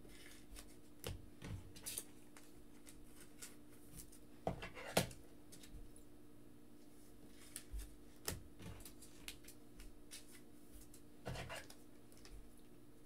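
Trading cards being handled and slid into rigid plastic top loaders: scattered light clicks, taps and short scuffs, with a faint steady hum underneath.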